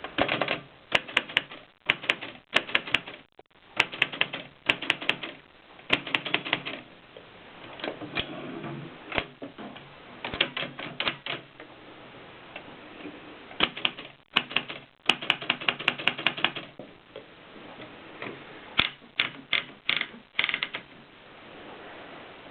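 AEG Mignon 4 index typewriter being typed on: bursts of quick, sharp clacks with short pauses between them, and a few quieter stretches of several seconds.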